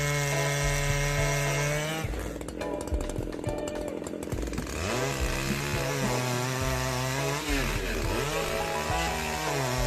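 Chainsaw engine running at speed, going noisier while it cuts through an oak trunk from about two seconds in. After that its pitch rises and falls again and again as it is throttled up and down.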